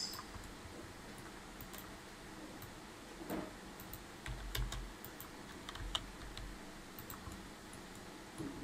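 Faint, scattered clicks and taps of a computer keyboard and mouse as values are typed into fields, with a couple of low thumps near the middle.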